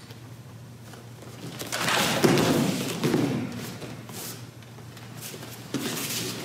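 Thuds of bare feet on dojo mats and swishing movement of people practising a sword kata, loudest about two seconds in.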